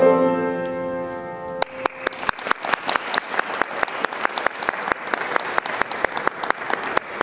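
A grand piano's final chord rings and is cut off about a second and a half in, then the audience applauds.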